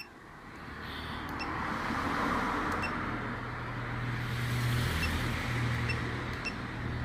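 A motor vehicle engine running steadily, fading in over the first second or two, with a low hum under a broad rushing noise.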